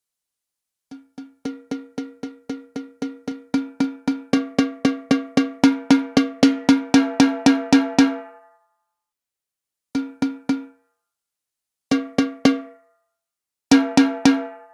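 Trig Mic Gen2 drum trigger's built-in 'Snare-R' factory sample, played from stick hits and recorded straight from the line output with no processing. A steady roll of identical, pitched hits at about four a second grows louder and stops about eight seconds in, then comes back in three short bursts of two or three hits.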